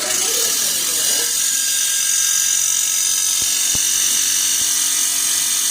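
Air fryer toaster oven's convection fan running: a steady, loud whirring hiss with a high whine, switched on just as the sound begins, with a couple of faint knocks.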